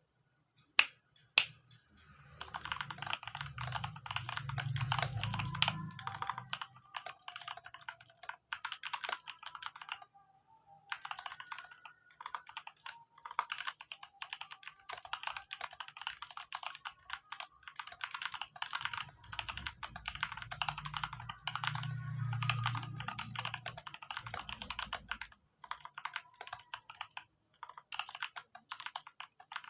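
Mechanical keyboard with Outemu Purple 62g tactile switches, lubed with Krytox 205g0, on a steel plate in a tray mount with the O-ring mod, being typed on slowly at an uneven pace. Two sharp, louder clicks come about a second in, and the typing pauses briefly around ten seconds in and again near the end.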